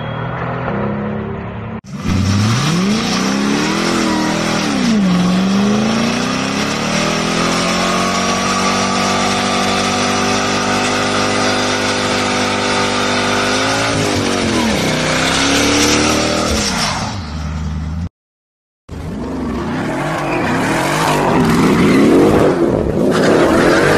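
Mercedes-AMG sedan engine revved hard in a burnout: the revs climb, then are held steady near the top for several seconds before dropping away. After a short silence, another AMG Mercedes revs and accelerates away hard.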